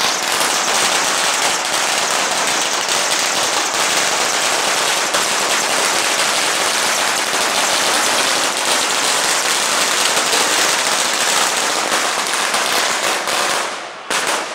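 Firecrackers going off in a dense, continuous rapid crackle, like a long string burning through, that stops abruptly near the end.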